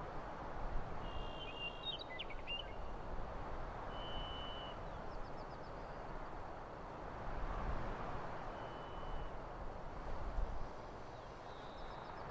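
Outdoor nature ambience: a steady rushing hiss with a bird giving a short, level whistled note about every three to four seconds, plus a few quick chirps and faint trills.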